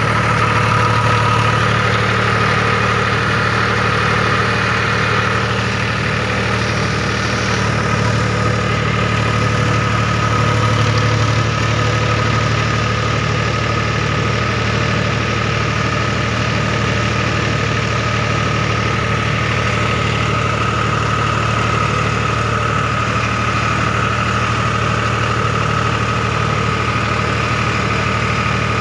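Powertrac Euro 45 tractor's diesel engine running steadily.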